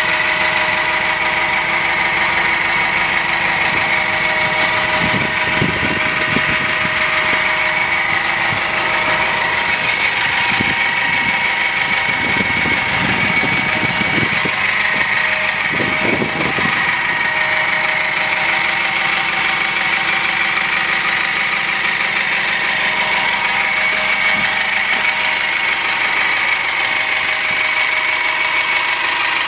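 Diesel engine of a GAZ Gazelle Next light truck idling steadily.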